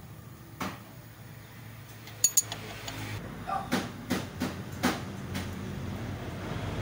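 Scattered light metallic clinks and knocks: two sharp clinks about two seconds in, then about five knocks in a row over the next couple of seconds, from tools or metal parts being handled during engine work.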